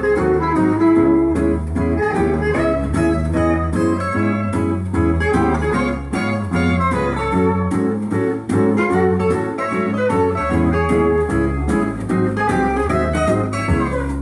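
Guitar-led music played back from a vinyl record on a turntable fitted with a Denon DL-103S moving-coil cartridge.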